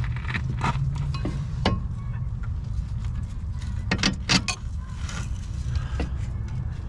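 Scattered metallic clinks and knocks of hand tools on the strut bolts of the van's front suspension, about five sharp ones, over a steady low hum.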